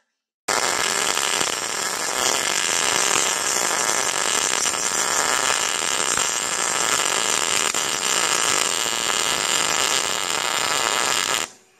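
MIG welder arc crackling steadily as it runs one continuous bead, welding a steel clevis chain hook to a steel plate. It starts about half a second in and cuts off sharply near the end when the trigger is released.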